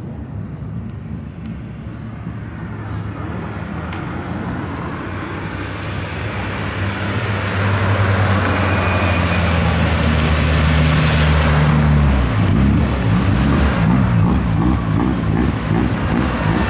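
Hill-climb race car engine approaching under power, growing steadily louder, then holding a steady note before it turns rough and uneven about twelve seconds in.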